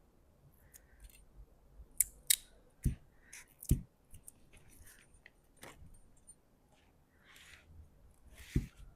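Handling of lamp parts: a few sharp clicks about two seconds in, dull knocks a little later and again just before the end, and short scraping rubs in between.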